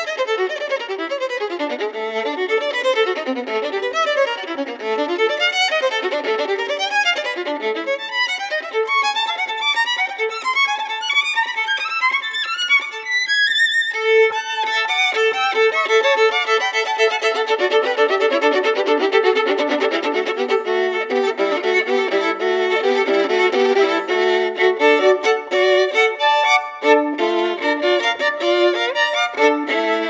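Solo violin played with the bow: fast running passages, a brief break about halfway, then quickly repeated notes.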